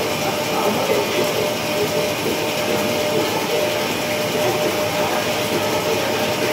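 CNC lathe taking a rough turning cut on a large spinning metal workpiece under flood coolant: a loud, steady noise of cutting and spraying coolant with a constant whine underneath.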